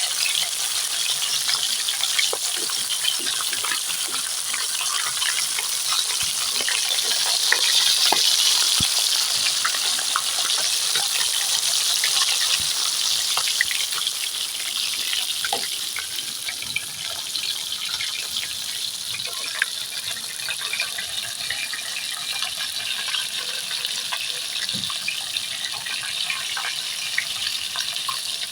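Pieces of rohu fish frying in hot oil in a kadai: a steady sizzle with many small crackles and spits of oil, swelling a little in the middle. The frying is nearly done.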